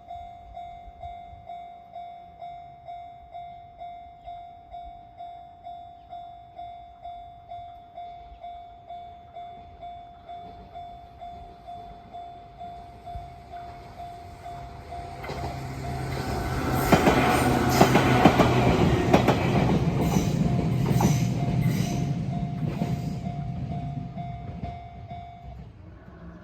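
Japanese railway level-crossing warning bell dinging in an even 'kan-kan' repeat, about one and a half strikes a second. About halfway through, a Nishitetsu electric train approaches and passes, loud with wheels clacking over the rail joints, then fades. The bell stops near the end.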